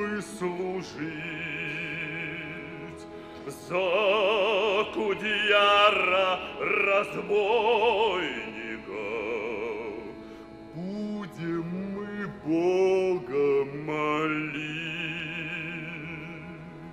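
Male solo voice singing a slow Russian folk song in long, drawn-out phrases with wide vibrato, over held choir voices. The voice swells loudest a few seconds in and again later, then fades near the end.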